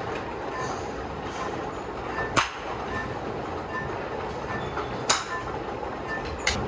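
Steady running noise of a moving train, broken by three sharp clicks.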